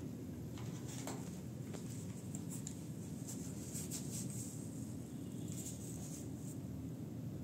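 Low steady room hum with faint, scattered scratchy rustles and light ticks.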